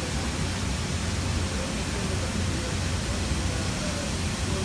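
Steady hiss and low hum of powder-coating equipment running: compressed air and extraction fans of a spray booth, even and unbroken.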